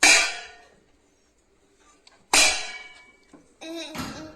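Metal pots or pans banged together: two loud clangs about two seconds apart, each ringing out. A shorter, pitched sound follows near the end.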